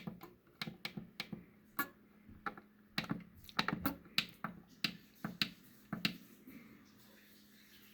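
Rapid, irregular clicks of a Maple Chase thermostat's push buttons being pressed again and again to step the clock setting, several a second, stopping about six and a half seconds in.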